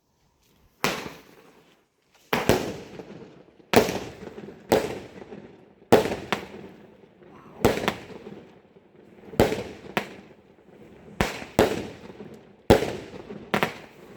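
Fireworks going off: a string of about a dozen sharp bangs, roughly one a second at uneven spacing, each followed by a rumbling echo that dies away. It starts about a second in.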